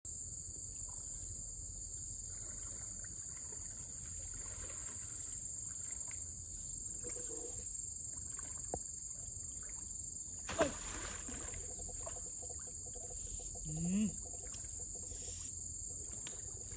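Steady high-pitched insect drone over forest ambience with soft water sloshing as someone wades in a river. A sudden sharp sound about two-thirds through and a short rising tone soon after.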